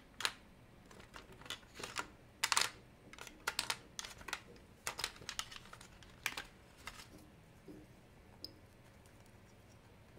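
Irregular light clicks and taps of tweezers and small watch parts against a plastic compartment tray as parts are picked through. They come thick for about the first seven seconds, then thin out to a few scattered ticks.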